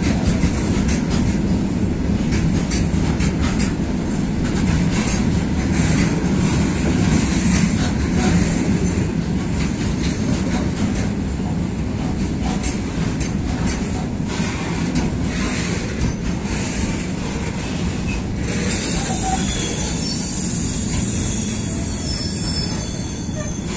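Freight train of open hopper wagons running through at speed: a steady rumble of wagons and wheels, with clattering over the rail joints. About three quarters of the way through, a high wheel squeal comes in.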